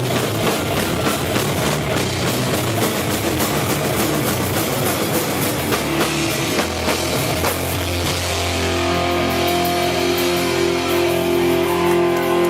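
Rock band playing heavy music on drum kit and electric guitars. About eight seconds in, the dense drumming gives way to held guitar chords ringing out.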